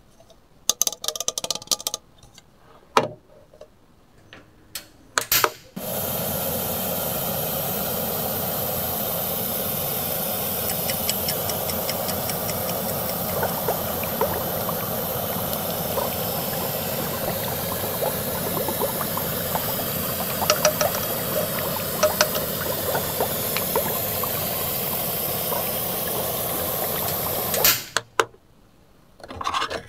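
A few light plastic clicks and knocks, then a toy cooker's boiling-water sound effect: a steady hiss with a faint bubbling crackle. It starts abruptly about six seconds in and cuts off suddenly near the end, as the hob's button is pressed.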